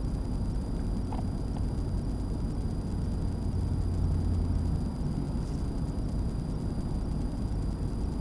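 Steady low drone of road and engine noise inside the cab of a Ford F350 diesel pickup cruising on the highway, swelling slightly about halfway through.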